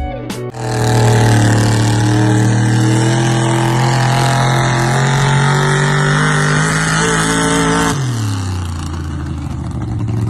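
An engine running hard, its pitch climbing slowly and steadily for about seven seconds, then dropping away quickly near the end.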